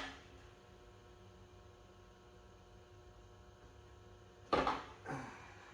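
Faint steady electrical hum, then two sharp knocks about half a second apart near the end, parts or tools being handled during reassembly of the engine.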